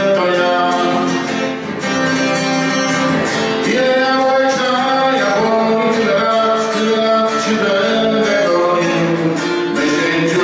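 Live acoustic guitar strummed as accompaniment to a man singing, with long held notes.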